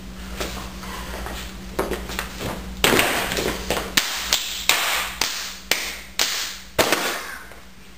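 A series of sharp taps or clinks, about two or three a second and louder from about three seconds in, each with a short ring, over a steady low electrical hum.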